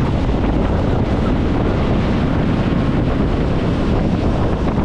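Wind buffeting the microphone over the steady running of a motorboat's engine as the boat travels along the river.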